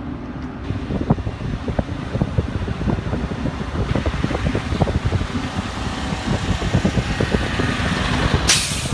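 A motor vehicle running, a steady low rumble with many short crackles and knocks over it, and a brief sharp hiss near the end.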